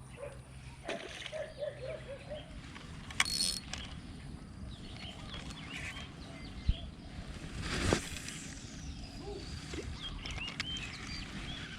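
Outdoor ambience: a steady low rumble with short chirping calls of birds or other small animals early on and again near the end. A sharp click comes about three seconds in, and a brief swish about eight seconds in.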